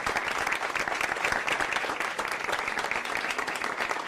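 A room of dinner guests applauding, many hands clapping steadily.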